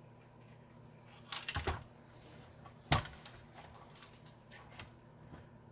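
Handling clatter from taking apart a Commodore 64: a short run of clicks about one and a half seconds in, then a single sharp knock about three seconds in, with a few faint ticks after.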